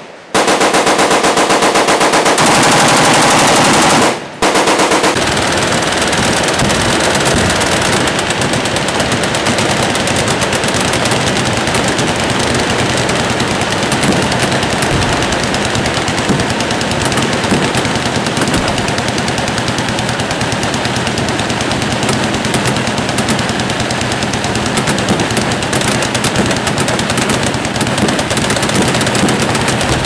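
A long burst of full-auto rifle fire from an HK G3-type rifle. After a short break about four seconds in, it gives way to a continuous din of many machine guns firing at once, with shots overlapping without pause.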